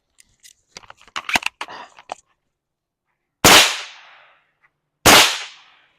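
Two shots from a suppressed firearm, about a second and a half apart, each a sharp report with a short fading tail, preceded by a few light clicks.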